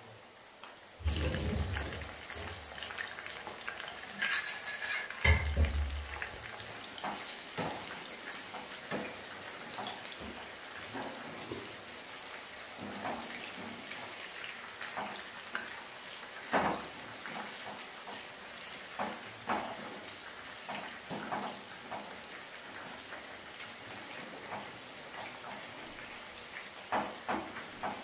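Lumps of batter frying in hot oil in a frying pan, a steady sizzle, with light clicks of a wire spider strainer against the pan as the pieces are turned. Two dull thumps come in the first few seconds.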